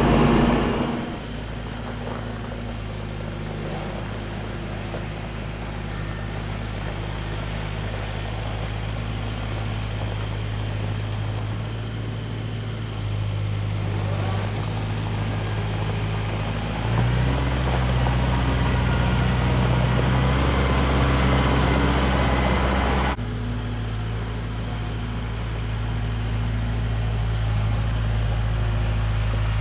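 Vehicle engine running steadily at low speed. About 17 seconds in it runs louder and higher, as if under more throttle, then drops back abruptly about 23 seconds in.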